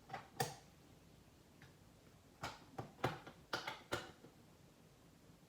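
Resistance decade box's rotary dials clicking through their detents as values are set: two sharp clicks at the start, then a cluster of about six between two and four seconds in.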